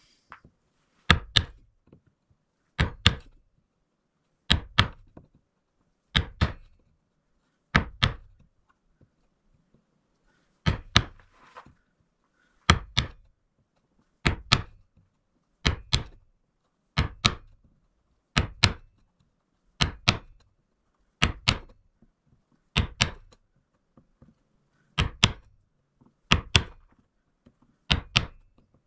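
A wood chisel being struck, most likely with a mallet, while chopping out a groove in a softwood board. Sharp knocks, mostly in close pairs, come about every one and a half to two seconds, with a longer pause near a third of the way through.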